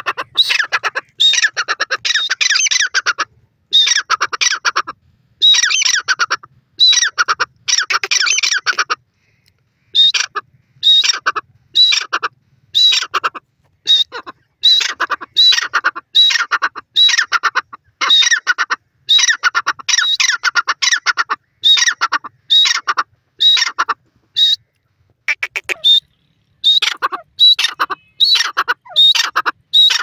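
Grey francolin calling: a long run of loud, harsh calls, each opening with a sharp high note, about one a second, with a brief pause about a third of the way in.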